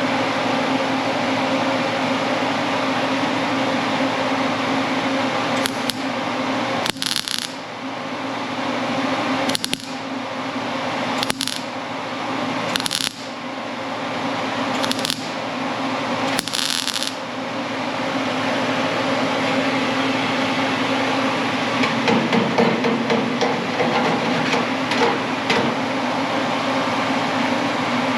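A welder laying short tack welds on fender sheet metal: about six brief hissing bursts, each under a second, a second or two apart, over a steady shop hum. Irregular crackling comes later.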